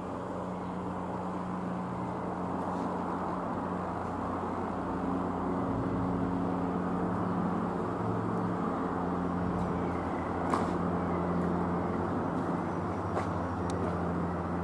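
Van's RV-7A light aircraft's single piston engine and propeller droning steadily as it flies past, getting a little louder in the first few seconds.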